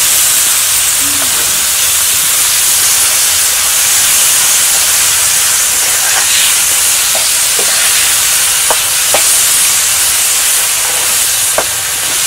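Insects frying in a thick sauce in a wok, a steady loud sizzle. In the second half, a metal spatula stirring them gives a few light clicks and scrapes against the pan.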